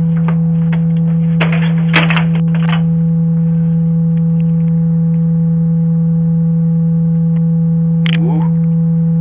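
Loud, steady low electronic hum: one unchanging buzzing tone that drowns everything else, with faint voices beneath it in the first few seconds and again near the end.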